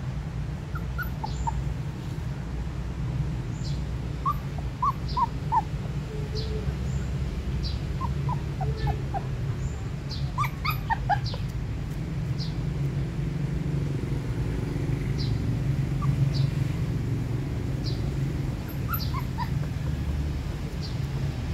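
Puppies whimpering in short, high squeaks that come in little runs of three or four, over a steady low rumble, with faint short clicks throughout.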